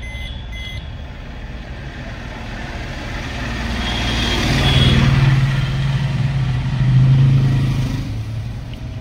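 A couple of short electronic chimes from the car's instrument cluster near the start. Then a motor vehicle's engine noise swells up over a couple of seconds and stays loud with a low steady hum, easing off near the end.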